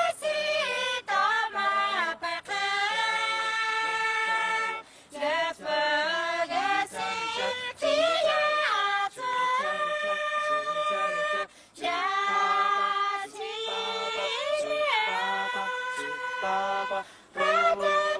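A small group singing unaccompanied in multi-part harmony, women's voices leading. The notes are long and held, in phrases with short breaks between them.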